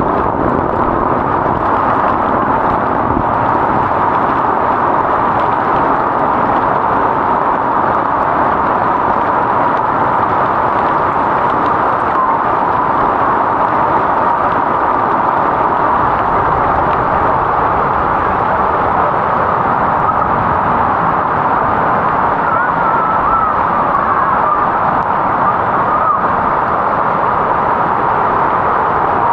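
Heavy tropical downpour falling steadily onto floodwater, a dense, even hiss.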